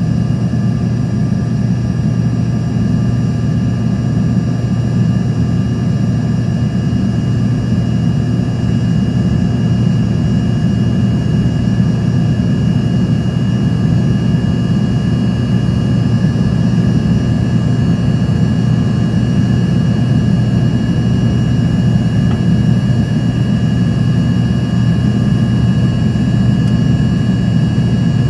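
Cabin noise of an Embraer ERJ-140 climbing out after takeoff: its rear-mounted Rolls-Royce AE 3007 turbofans at climb power heard from inside the cabin, a steady deep rumble with thin steady whining tones above it, a little louder in the second half.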